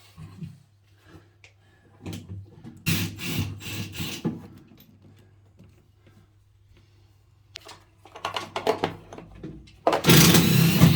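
Scattered rubbing and knocking of handled objects over a steady low hum, with a loud scraping rush near the end.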